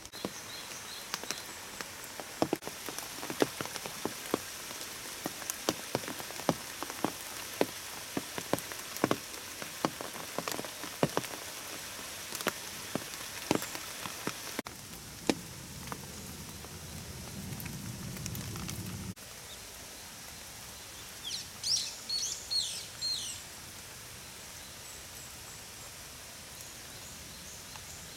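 Raindrops tapping on an umbrella as irregular sharp ticks over a steady hiss of rain, thinning out after about fifteen seconds. A low hum comes in for a few seconds in the middle, and a bird chirps several times in quick succession about twenty-one seconds in.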